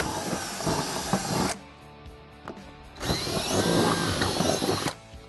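Cordless drill with a 5/16 in bit boring through the bottom of a golf cart's bag well, in two runs of about two seconds each with a short pause between them.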